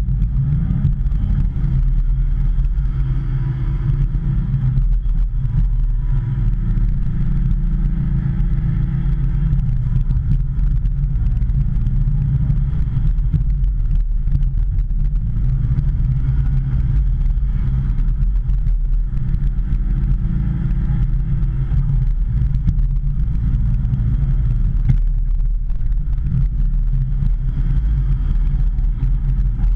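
Hitachi ZX210 excavator's diesel engine running steadily at working revs while it digs, with a constant low drone.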